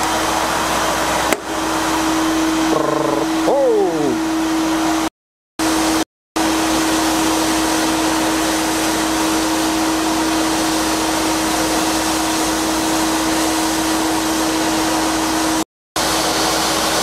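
Sandblasting cabinet running: a steady hiss of compressed air driving abrasive against a metal part, stripping its coating, with a steady low tone beneath.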